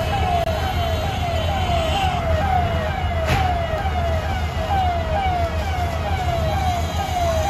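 Fire engine siren sounding a fast repeating falling wail, about two sweeps a second, over a steady low engine rumble.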